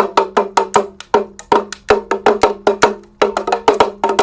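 Damaru, a small hourglass-shaped hand drum, shaken back and forth so its beaded cords strike both heads in a rapid run of sharp, dry beats, about six a second.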